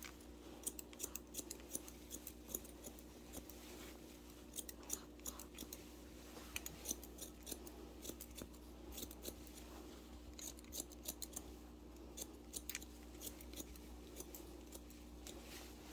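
Barber's long shears snipping hair in quick runs of cuts, the clusters of snips coming every second or so, over a faint steady hum.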